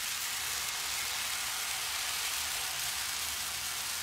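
Pancake batter sizzling steadily on a hot, greased steel flat-top griddle as a second pancake is poured.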